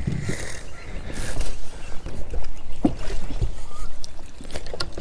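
Bass boat under way, its motor and the water making a continuous low rumble with wind on the microphone, broken by a few sharp knocks and clatters.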